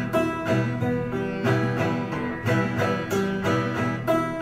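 Acoustic guitar strummed in a steady rhythm, an instrumental passage of an Irish folk song with no singing.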